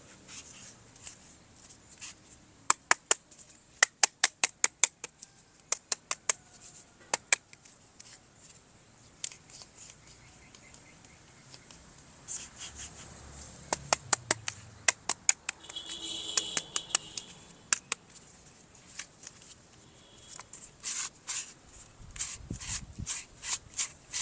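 Plastic toy pieces being handled: sharp clicks in quick runs of several at a time, with scratching and rustling between them and a short buzzy tone about two thirds of the way through.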